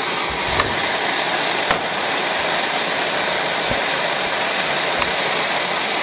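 Hand-held gas torch burning with a steady hiss as its flame heats a brass pump shaft sleeve, expanding it so it can be sweated onto the shaft. A small click just under two seconds in.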